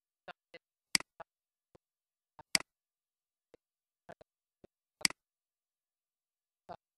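Computer mouse clicking: three sharp clicks, about a second and a half apart, with fainter ticks between them.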